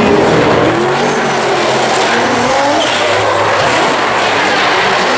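Drift cars sliding through a corner: engines revving hard, their pitch rising and falling, over steady tire squeal and skidding.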